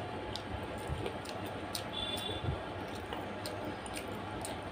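Eating sounds: scattered sharp mouth clicks and smacks from chewing chicken feet, and wet clicks of fingers mixing rice into curry gravy on a metal plate, over steady background noise.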